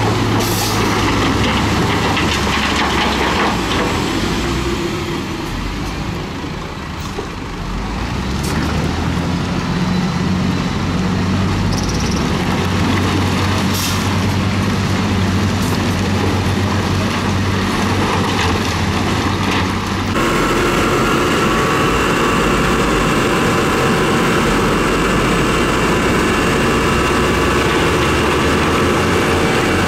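Heavy dump truck's diesel engine running as its raised bed tips out a load of gravel and rock, with a few sharp knocks from the falling stones; the engine speeds up about a quarter of the way through. About two-thirds in, the sound changes suddenly to another dump truck's engine running steadily as it tips out large rocks.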